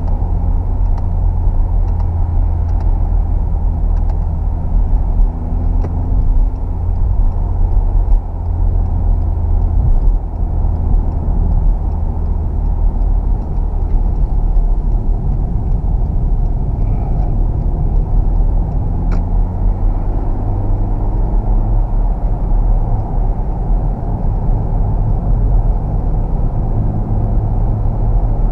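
Ford KA+ 1.2-litre four-cylinder petrol engine running while the car is driven, with a steady low rumble of engine and road noise heard from inside the cabin. The engine note shifts a few times.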